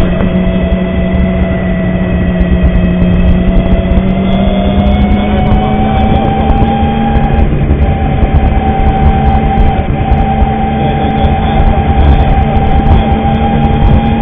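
Motor scooter running at road speed, a steady droning whine that rises slightly in pitch partway through, over a constant low rumble of wind and road noise on the microphone.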